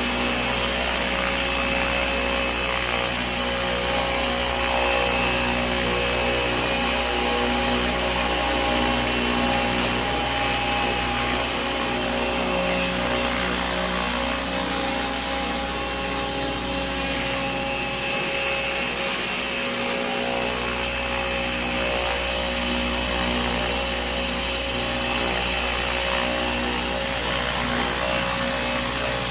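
Align T-Rex 600 ESP electric radio-controlled helicopter in flight, its motor, gear and rotor giving a steady whine and hum with many held tones.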